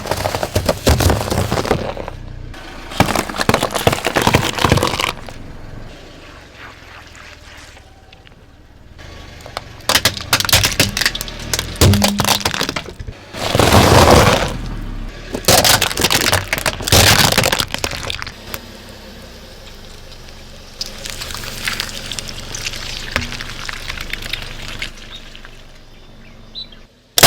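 Objects cracking and breaking as they are crushed under a car's tyres, in about six separate bursts of crunching, each lasting a second or more.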